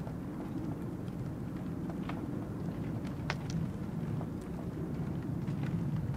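Outdoor waterside ambience: a steady low rumble, like distant engines, with a few faint scattered clicks and ticks.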